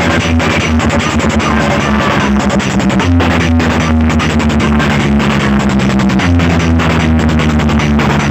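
Very loud dance music from a competition sound-system rig of stacked speaker boxes, with a fast, dense beat over heavy held bass notes that change pitch twice.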